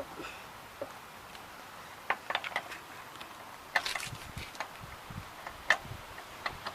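Scattered sharp clicks and light knocks, bunched in a couple of quick clusters with a single louder click near the end, over a faint steady background.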